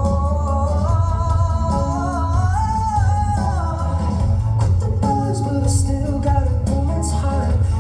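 Pop song: a male voice singing a gliding melody over steady bass and a regular drumbeat.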